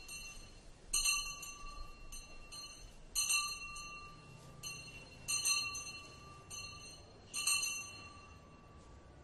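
A bell struck over and over, each stroke ringing on and fading: louder strokes about every two seconds, with softer ones in between.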